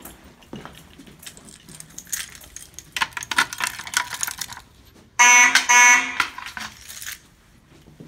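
A ring of keys jangling and clicking against a Simplex fire alarm pull station at its key lock, then two short, loud fire alarm horn blasts about five seconds in.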